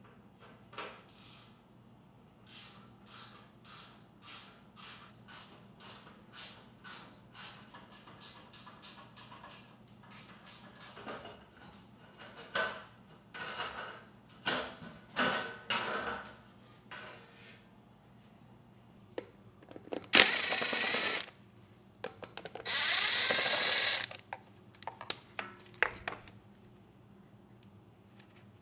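Fasteners being worked off with a hand ratchet, its clicking strokes coming steadily for several seconds, then a few louder strokes. Then a cordless power driver runs twice, about a second and then about two seconds, its motor pitch changing as it spins.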